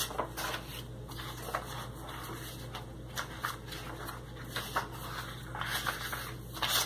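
Pages of a coloring book being turned by hand: a run of soft paper rustles and flaps, with a louder rustle near the end.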